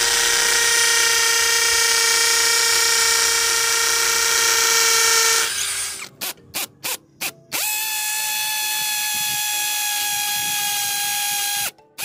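Cazar CZ-21VD 21-volt brushless cordless hammer drill in hammer mode, running a 6 mm masonry bit into a wall with a loud, steady high whine. About halfway through it stops, gives several short bursts, then runs steady again at a higher pitch as it bores into concrete.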